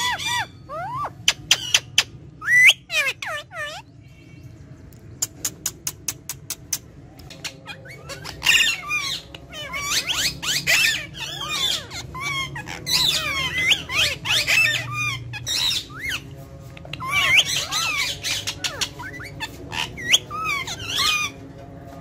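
Ringneck parakeets calling: quick sliding squawks and chattering whistles from several birds, coming thickest in the second half. A run of sharp clicks, about five a second, comes a few seconds in.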